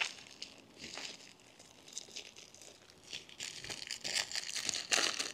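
Paper packaging being handled: tissue paper and a paper sleeve rustling and crinkling in short, scattered bursts, busier over the last couple of seconds.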